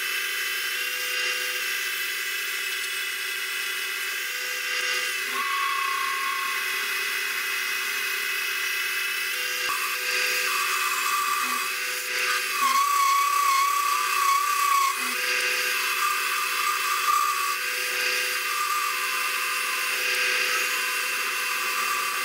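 Metal lathe running, its carbide tool turning down a long steel hammer handle: a steady whine with a wavering high squeal from the cut through the middle stretch, the chatter that a long, slender piece of steel tends to give.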